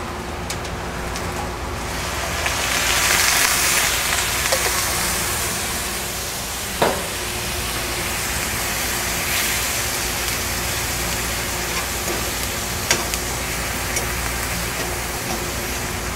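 Sliced onions and canned mushrooms with their liquid sizzling in a metal pan over a hot grill. The sizzle swells a few seconds in as the liquid hits the pan, and a fork clinks against the pan a couple of times while stirring. A steady hum from an exhaust vent hood runs underneath.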